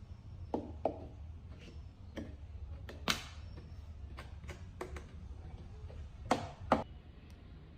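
Irregular clicks and knocks, about ten of them, the sharpest about three seconds in and two close together near the end, over a steady low hum.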